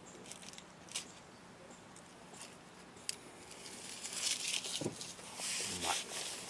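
Camping gear being handled and packed up: a few sharp clicks and knocks, then steady rustling from about four seconds in.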